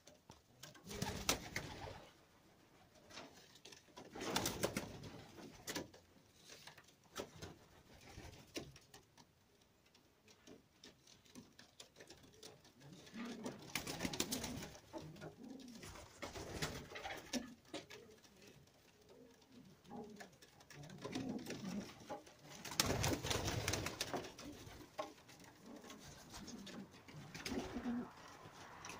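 Domestic white pigeons cooing in a small loft, with a few louder rustling bursts between the coos.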